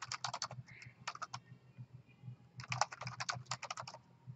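Typing on a computer keyboard: a quick run of keystrokes at the start, a few single keys about a second in, and a longer, faster run from about two and a half seconds in. A faint low hum runs underneath.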